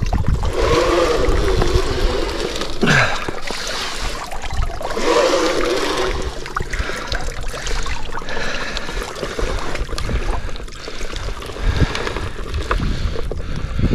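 River water splashing and gurgling against the fine mesh of a whitebait net.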